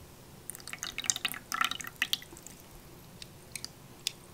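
Water dripping and splashing as a wad of soaked toilet paper is lifted out of a plastic cup of water with tongs and let back in: a quick cluster of patters and splashes in the first half, then a few single drips. The paper, soaked for about an hour, still comes out mostly in one piece.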